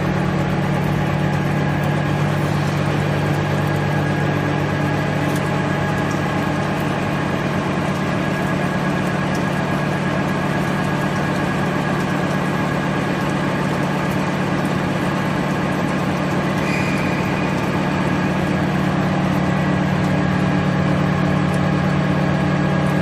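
Gantry-type CNC milling machine milling a steel plate: a steady, unbroken machine hum from the spindle and cutter, with a faint thin whine above it.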